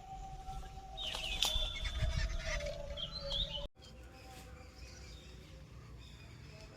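Birds chirping over steady outdoor background noise, with a few clicks; the sound cuts off abruptly about three and a half seconds in, leaving a quieter background.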